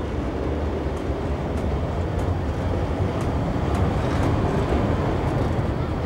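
NS 1200-class electric locomotive 1202 passing at close range towing 1300-class locomotive 1302: a steady rumble of wheels on the rails with a low hum, the 1302's traction fans running to drive its battery-charging generator.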